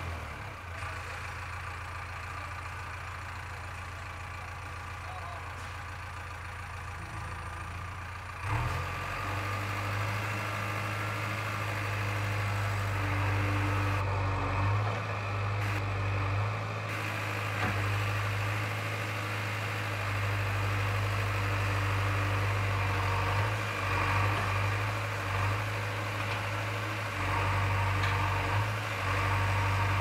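JCB 3DX backhoe loader's diesel engine running steadily with a low hum, quieter for the first eight seconds, then louder from about eight seconds in, with small surges as the machine works the dirt.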